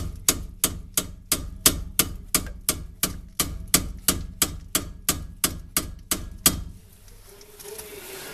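Hammer blows on metal in a steady, even run of about three strikes a second, stopping suddenly near the end.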